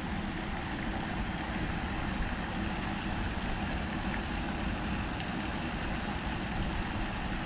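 Wind blowing over the microphone: a steady low rumble with a fainter hiss above it.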